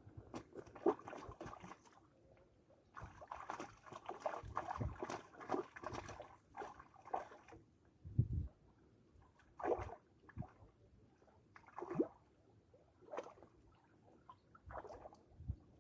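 Water sloshing and splashing in short, irregular bursts, with a few knocks between them.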